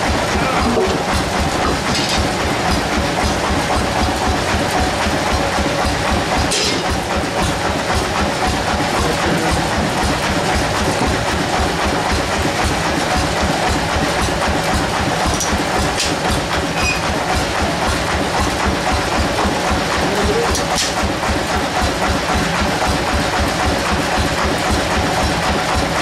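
Bandsaw mill machinery running steadily with a fast, even low thumping, as from its engine at a constant speed. A few sharp knocks of wood and tools come through on top.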